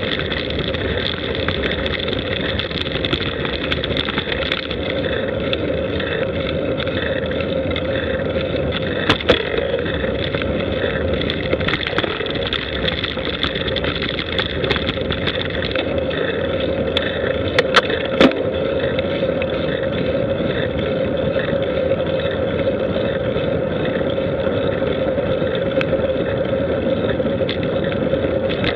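A vehicle moving at a steady speed along a paved road, its motor holding one even pitch under road noise, with a few brief knocks from bumps about nine seconds in and again near the middle.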